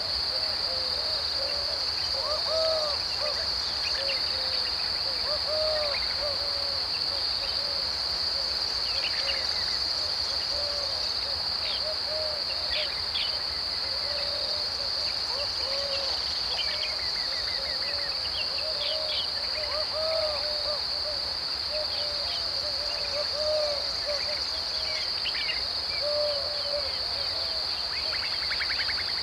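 Dry deciduous woodland ambience: a steady high-pitched insect drone runs throughout. Short low hooting bird calls repeat every second or two, over scattered higher chirps and trills from other birds.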